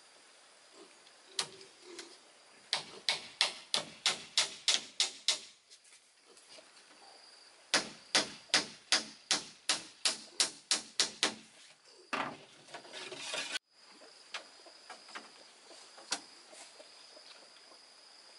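Hammer blows in two quick runs of about ten strokes each, roughly three a second, as when driving nails. A second or so of rough scraping noise follows and cuts off abruptly.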